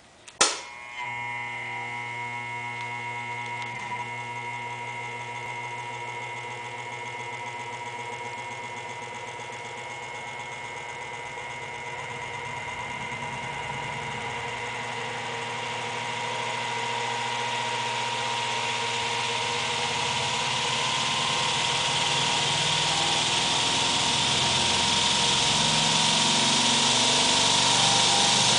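Jugs Jr pitching machine clicked on, then its electric motor and pneumatic-tyre wheel spinning up with a steady hum. From about ten seconds in it grows gradually louder, with a rising rush of air as the speed is turned up.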